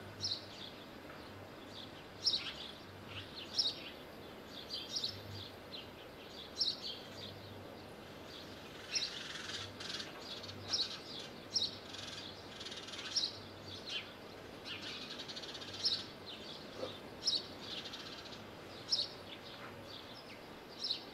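Short high bird chirps repeated about once a second, some in quick pairs, over a steady background hiss.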